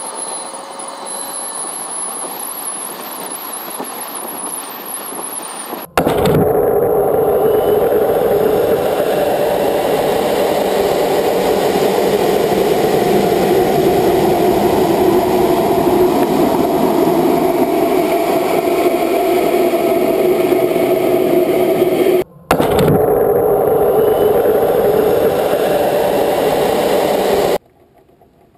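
Amateur high-altitude rocket's motor lighting at liftoff: after a few seconds of steady hiss with a faint high whine, a loud steady rushing noise starts suddenly about six seconds in and holds, dropping out briefly once and cutting off abruptly near the end.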